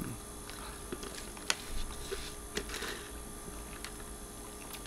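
Faint scattered clicks and soft handling sounds, with one sharper click about one and a half seconds in.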